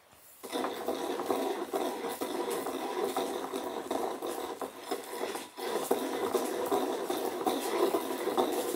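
Wooden pestle grinding round a ceramic Japanese mortar (suribachi), a steady rasping scrape, with a brief pause about five and a half seconds in.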